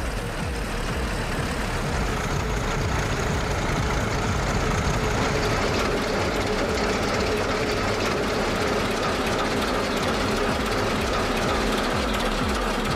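Model diesel locomotives running on the layout: a steady electric motor whine with the rattle of the wheels on the track.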